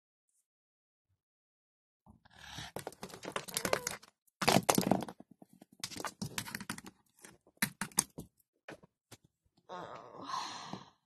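Plastic toy animal figurines being handled and knocked against a wooden tabletop: a run of quick taps, clacks and rustling handling noise that starts about two seconds in.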